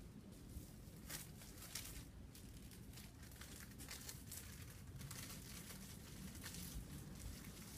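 Faint, irregular crinkling and rustling.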